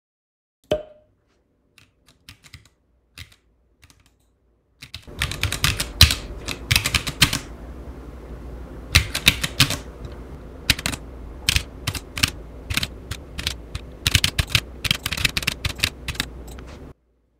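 Computer keyboard typing: a sharp click about a second in and a few scattered keystrokes, then fast, dense runs of key clicks with short pauses that stop shortly before the end.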